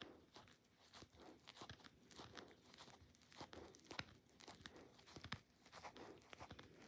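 A dachshund gnawing a plush corduroy teddy: faint, irregular crunching and crinkling of the fabric, with scattered sharp clicks from his teeth, the loudest about four seconds in.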